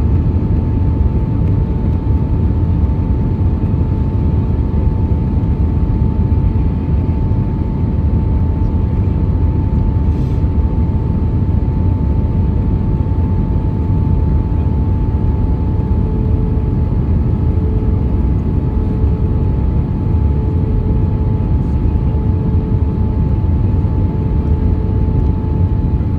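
Airliner cabin noise on the approach to landing: a steady, loud rumble of engines and airflow with a thin, constant engine whine. From about two-thirds of the way through, a lower hum starts to swell and fade about every second and a half.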